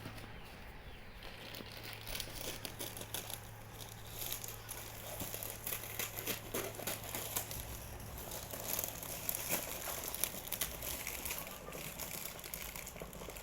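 Parcel packaging being handled and opened: irregular crinkling and rustling, busier in the second half.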